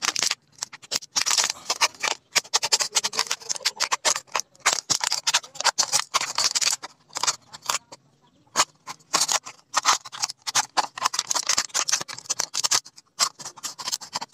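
Scissors cutting into a thin plastic drinking-water bottle: runs of quick, crisp snips and clicks of the plastic, with a few brief pauses between them.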